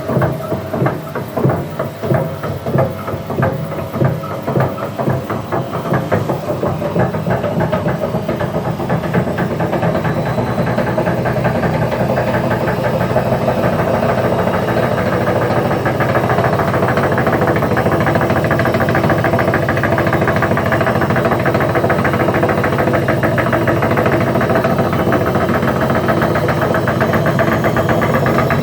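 Wagner washing machine drum spinning up: a rhythmic knocking that speeds up and grows louder over the first ten seconds or so, then settles into a loud, steady, fast rumble at spin speed. The noise comes from the drum's broken spider (cross-piece), which has snapped off.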